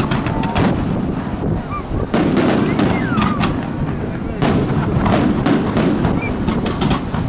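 Fireworks display: aerial shells and launched comets going off in a rapid, irregular run of bangs, with a few short whistling glides among them.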